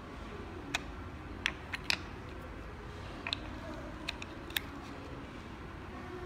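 Light clicks and knocks of cylindrical batteries being pulled out of and pressed back into the battery bay of an aluminium Hexohm 3.0 box mod, about eight scattered taps over a low steady hum.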